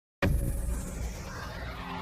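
Intro music starting suddenly with a deep bass, and a high sweep falling slowly in pitch over it.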